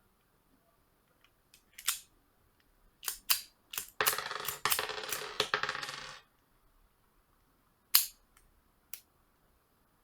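Miniature alloy toy pistol and its small metal parts clicking and clinking. There are a few sharp clicks, then a dense clinking rattle for about two seconds, then two more clicks.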